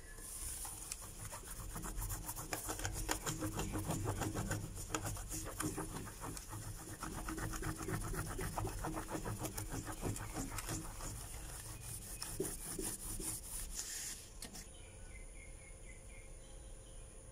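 Cloth rubbed rapidly back and forth over an embossed brass plate, hand-polishing the metal: a fast, scratchy rubbing that stops about three seconds before the end.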